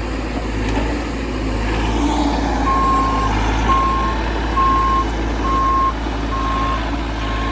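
Excavator's diesel engine running steadily under load, joined under three seconds in by its travel alarm beeping, about one beep a second, six times.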